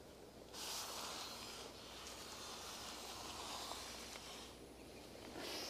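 Faint scratching of a pencil drawn across a large paper map, a soft rasp that starts about half a second in, fades near the end and starts again just before it stops.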